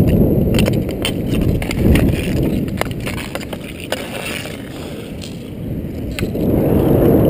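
Inline skate wheels rolling over rough asphalt in a steady rumble, with scattered sharp clicks from hockey sticks and the puck. The rumble eases off in the middle and picks up again near the end.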